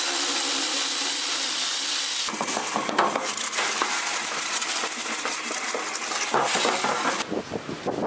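Tap water running hard into a steel sink, then splashing irregularly as a plastic blower filter mesh is scrubbed by hand under the stream.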